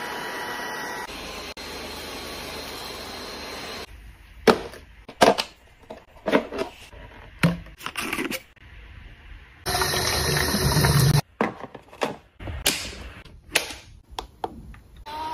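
Packaged cleaning supplies being handled and unpacked: a steady hiss at first, then a series of sharp clicks and knocks, with a stretch of rustling about ten seconds in.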